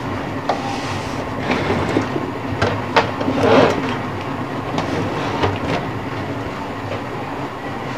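Steady rumbling background noise, with a few clicks and a louder rustle about three and a half seconds in as the phone camera is handled and swung around.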